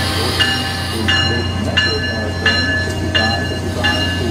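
Bell of an Amtrak ACS-64 electric locomotive ringing steadily, six rings about 0.7 s apart, while its passenger cars roll past over a steady low hum.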